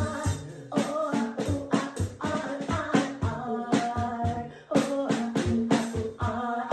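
Music with a beat: regular percussive hits under a pitched melodic line. It breaks off briefly twice, about a second in and near the five-second mark.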